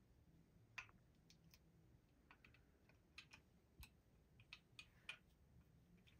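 Faint, irregular small metal clicks and ticks as the cylinder of a Colt Frontier Scout .22 revolver is handled and fitted back into the frame, the sharpest click about a second in.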